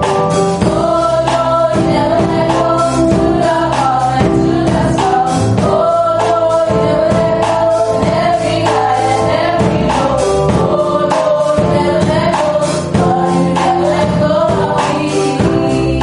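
A choir singing a gospel song with band accompaniment and a steady drum beat.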